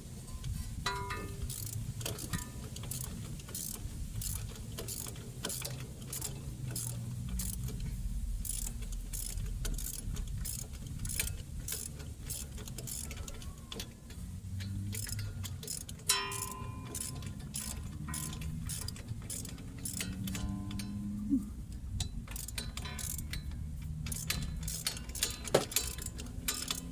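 Socket ratchet wrench clicking in long runs of quick even clicks while a brake caliper bolt is worked, with a few ringing clinks of metal tools.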